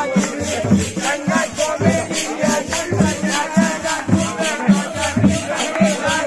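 Men singing a Holi folk song together, backed by rope-laced hand drums keeping a steady beat and a hand-held frame of small metal cymbals shaken in time.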